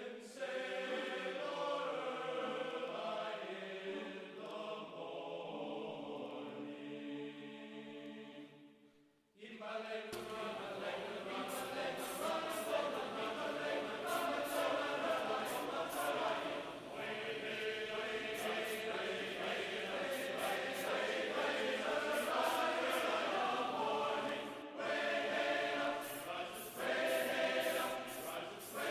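Background music of choir-like chanting voices. It drops out briefly about nine seconds in, then resumes fuller and brighter.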